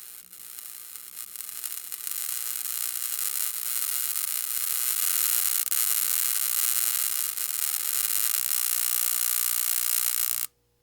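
Short-circuiting electrical wiring arcing: a harsh crackling hiss with occasional sharp pops. It builds over the first couple of seconds, holds steady, and cuts off suddenly near the end.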